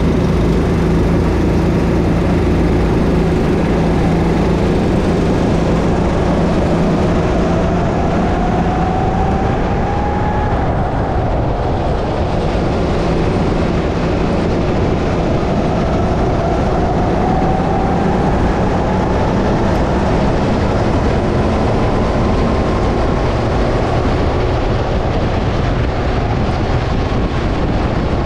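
Go-kart engine running under load, heard onboard, its pitch climbing twice as the kart accelerates.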